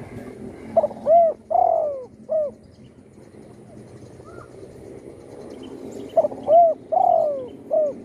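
Spotted dove cooing: two phrases of its song, each a short note followed by three arched coos, one about a second in and another about six seconds in.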